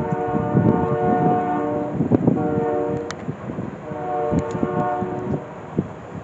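Nathan K3LA three-chime air horn on a Union Pacific AC4400CW freight locomotive sounding two blasts: a long one of about two and a half seconds, then a shorter one about four seconds in. Both are heard over the low rumble of the passing train.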